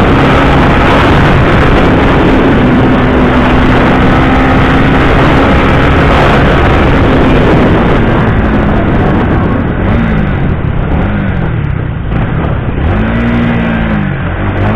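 Honda Winner X's single-cylinder 150 cc engine running at steady road speed under heavy wind and road rush. About two-thirds of the way in, the rider eases off and the rush fades. The engine note then rises and falls in several short swells as it slows and shifts.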